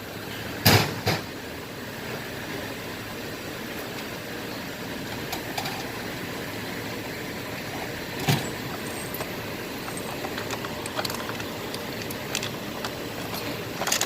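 Sharp metal clanks of tools and engine parts being handled during an engine teardown, a loud pair about a second in and another near the middle, over a steady background noise.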